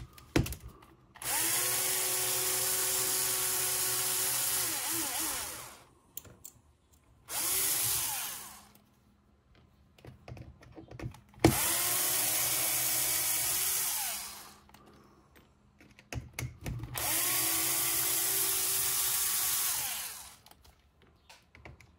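Small electric drill-driver backing screws out of an RC car chassis: four runs, three of them several seconds long and one short, each spinning up and winding down, with light clicks of handling between them.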